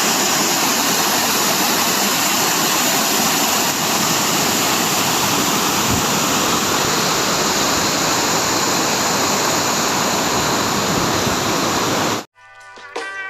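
Steady rushing of a waterfall that cuts off abruptly about twelve seconds in. Music with clear notes and drum hits starts just before the end.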